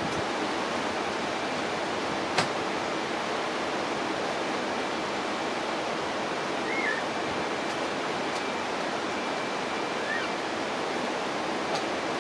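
Steady rushing of running water, with one sharp click about two and a half seconds in and two faint short chirps later.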